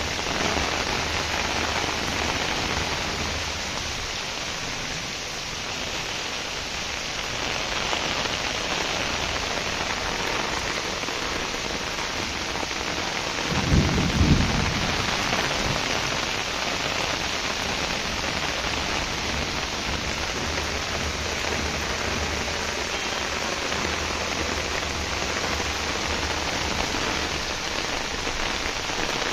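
Heavy rain pouring steadily onto a rooftop garden, an even hiss of falling water and drops hitting surfaces. About halfway through there is a brief low thump.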